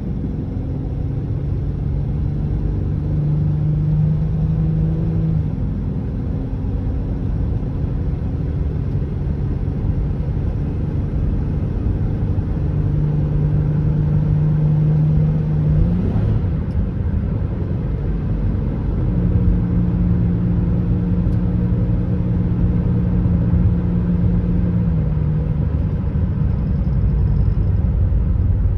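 Interior drive noise of a 2004 Buick Rendezvous CX under way at road speed: the 3.4-litre V6 hums steadily under a bed of tyre and road rumble. The engine's pitch steps to a new level several times as its speed changes.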